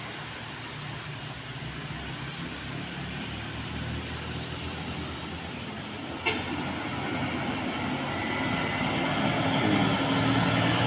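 Diesel engine of a loaded medium cargo truck running on a steep hill road, a steady low drone that grows louder over the second half as the truck draws near. A single sharp click a little after halfway.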